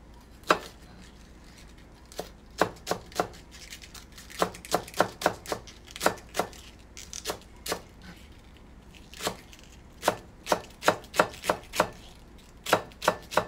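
Kitchen knife finely shredding cabbage on a cutting board: sharp knocks of the blade striking the board, in irregular runs of several quick strokes a second with short pauses between.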